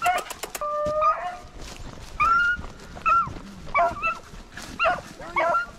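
Hunting beagles baying, the cry of hounds working a rabbit: one long held howl about a second in, then a string of short yelping bays that drop in pitch.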